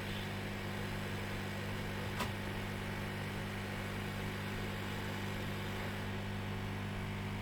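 Hot air rework gun blowing steadily while desoldering a backlight IC from a laptop logic board, a constant hum with an airy hiss. A single light click about two seconds in.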